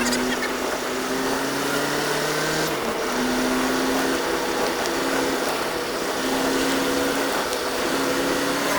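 A vehicle engine running steadily while under way, heard on board, a droning whine whose pitch steps slightly up and down now and then.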